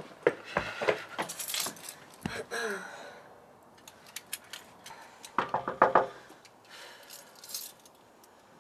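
Footsteps with a light metallic jangling, then a quick run of about six knocks on a wooden apartment door, five and a half seconds in.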